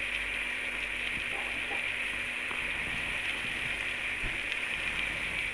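Whole chicken sizzling steadily in a Salad Master pan with no oil added: a continuous hiss as the chicken's own juices fry against the hot metal, with a few faint ticks.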